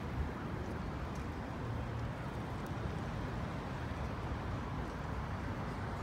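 Steady low urban background rumble with no distinct bird calls.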